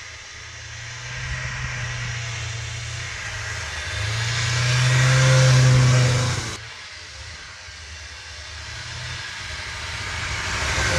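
Two-stroke engine of a Yamaha Enticer snowmobile running at a steady note, growing louder as the sled comes up the trail and passes close about six seconds in, then cutting off abruptly. A second snowmobile then approaches, its engine growing louder toward the end.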